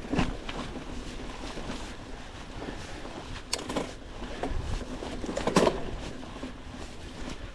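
Mountain bike riding down a rough dirt trail: tyres running over dirt with a steady low rumble and the bike rattling, with sharp knocks as it takes bumps, the loudest about three and a half seconds in and again near five and a half seconds.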